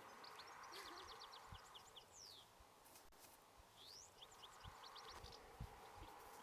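Faint bird calls: quick runs of short high chirps and two sliding high notes, one falling and one rising, over a soft hiss. A few soft low thumps, the clearest near the end.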